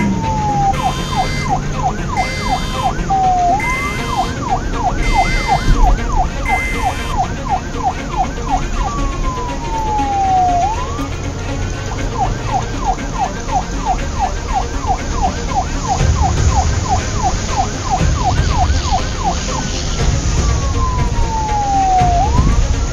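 Police car siren alternating between long falling wails and a fast warble of about four quick sweeps a second, over a low rumble. A higher beeping pulses in the first several seconds.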